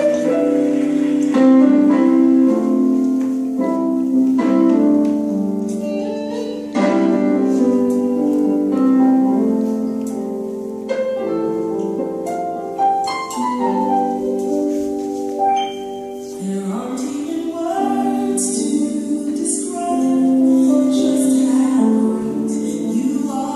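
Recorded music playing, with a singing voice over it in places.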